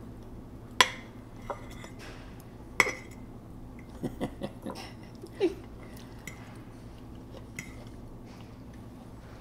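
A metal fork clinking and scraping against a ceramic bowl as food is scooped: two sharp clinks in the first three seconds, then a quick run of smaller taps around the middle.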